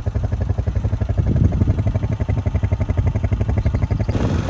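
A vehicle engine idling steadily, with a rapid even pulse.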